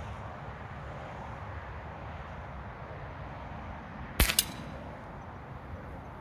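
Hatsan Jet 1 .25-calibre PCP air pistol, a detuned 495 fps version, firing once about four seconds in: a sharp pop, followed a split second later by a second crack.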